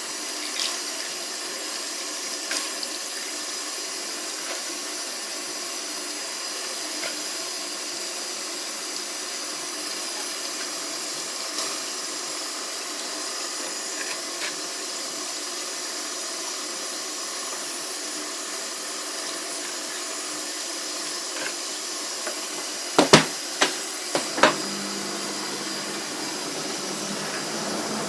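Superbrite twin tub washing machine with water running steadily. About 23 seconds in come a few sharp knocks, and then a motor starts humming near the end.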